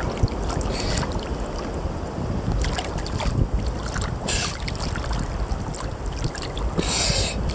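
Sea water lapping and sloshing right at the microphone, with a steady low rumble of water and wind. Brief hissy splashes come about a second in, around the middle, and near the end.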